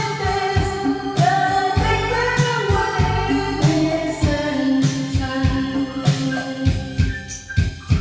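Music: a song with a singing voice over instrumental backing and a steady beat.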